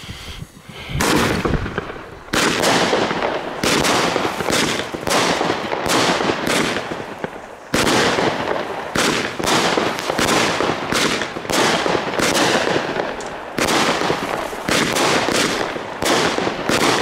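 Lesli 'Bombenstimmung' 16-shot firework battery firing. After about a second of quieter fuse burning, the shots come one after another, about one to two a second, each launch followed by a burst of white strobe stars.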